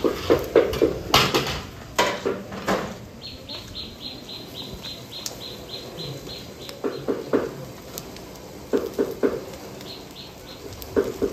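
Bursts of sharp rhythmic knocking, about three knocks a second, and between them a quick run of short high chirps, about four a second.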